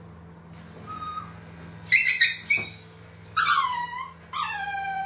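Shih Tzu puppy crying while being groomed: two sharp yelps about two seconds in, then two drawn-out whines that each fall in pitch.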